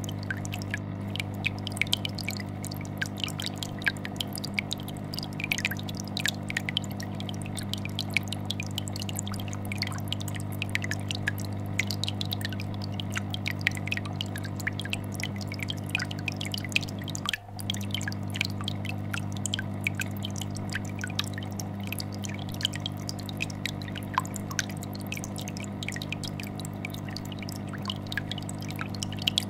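Aquarium air bubbler making a constant stream of small bubbling pops over the steady low hum of a vibrating tank filter. The sound briefly dips a little past halfway.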